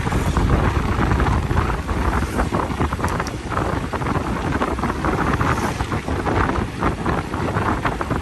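JCB 3DX backhoe loader's diesel engine running steadily, with wind buffeting the microphone.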